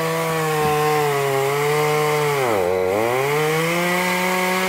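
Chainsaw running at high speed, cutting into a tree trunk. About two and a half seconds in, its pitch sags sharply for about half a second as the chain bogs down in the wood, then climbs back to full speed.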